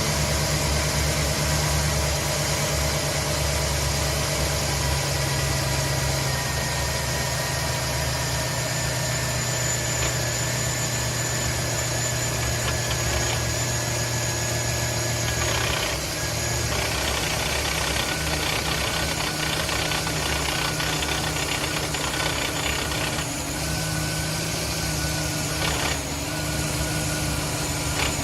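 2010 Chevrolet Silverado 1500's 5.3 L V8 running steadily at idle, with a faint high whine over the engine hum; this is the strange noise the owner wants identified.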